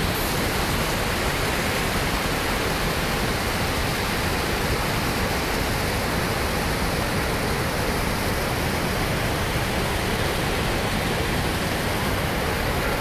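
Floodwater pouring over the overflowing Sardar Sarovar Dam's spillway and crashing into spray below: a steady, unbroken rush of falling water.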